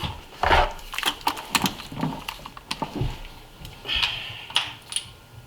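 Irregular clicks, taps and small knocks of hand tools on metal engine parts, with a louder knock about half a second in and a short scraping clatter around four seconds.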